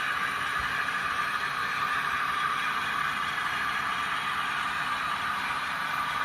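Model train running on the layout's track: a steady whir of the locomotive motor with the rattle of wheels on the rails, even throughout.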